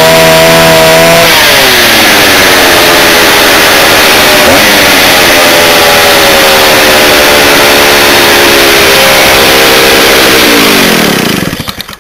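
Stihl 08 two-stroke chainsaw running at high speed, dropping a second or so in to a steady, lower engine speed. Near the end it winds down and stops as it is shut off.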